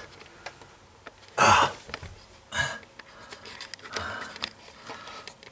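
A man's breathy grunts and exhalations, with rustling and handling noise, from the effort of squeezing into a cramped sink cabinet. Two short breathy bursts stand out, the louder about one and a half seconds in and another about a second later.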